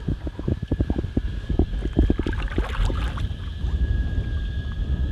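Wind gusting on the microphone and water slapping against a small boat's hull in irregular low thumps, over a steady high whine.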